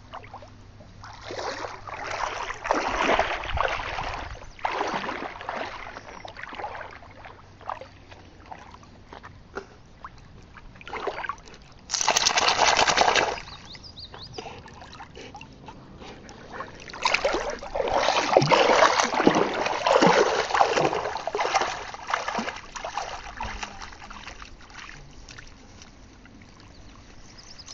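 Shallow river water splashing and sloshing as an Alaskan Malamute wades through it, in several bouts with quieter trickling between.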